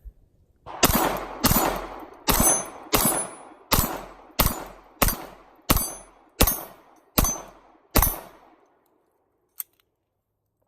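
A Glock 19 9mm pistol fired in a steady string of eleven shots, about one and a half a second, each shot trailing off before the next.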